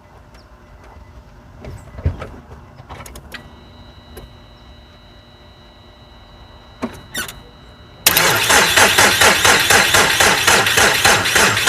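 A 2005 Nissan Altima 2.5's starter cranks the engine from about eight seconds in, a loud, even rhythmic turning-over that does not catch. The battery, only briefly charged after dirty terminals drained it, is not yet enough to start the car. Before that come a few light clicks, and a steady high electronic tone comes on about three seconds in.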